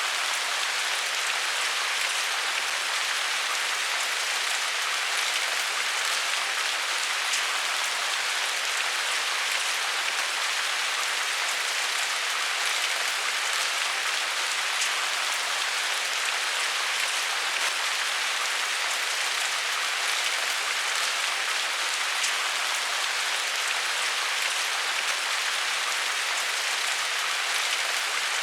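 Steady rain falling, an even hiss of many drops with faint individual patters, unchanging throughout.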